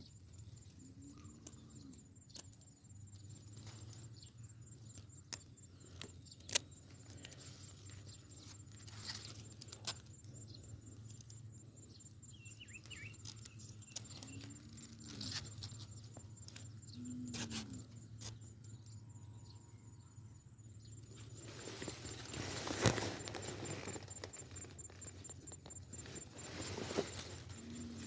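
Faint scattered clicks and rustling as a rat trap is set in grass, with a louder stretch of rustling near the end, over a steady high pulsing insect trill.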